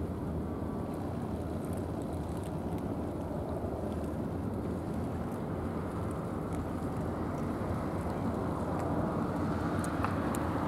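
Steady low rumbling outdoor background noise, growing slightly louder near the end.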